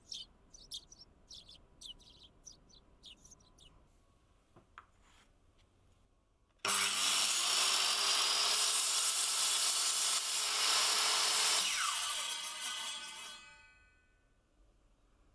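Circular saw starting up suddenly with a rising whine and cutting through a small wooden part on a crosscut guide jig, then switched off, its blade spinning down with a falling whine and fading out.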